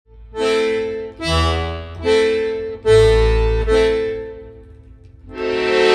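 Accordion music: a slow run of held chords over a bass, one chord about every second, fading near the fifth second before the next chord comes in.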